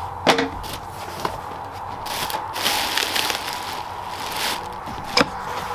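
Clear plastic bags of dahlia tuber clumps rustling and crinkling as they are handled and lifted out of a cardboard shipping box. There are two sharp knocks, one just after the start and one near the end.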